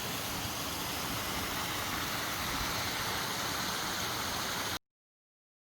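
Steady rushing wind noise over the microphone while riding a motorcycle, cutting off abruptly near the end.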